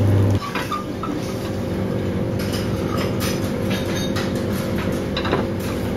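A steady, low machine hum with a few light clinks and clatters of cookware over it, at about two and a half to three and a half seconds in and again near five seconds. The hum drops abruptly in level just under half a second in.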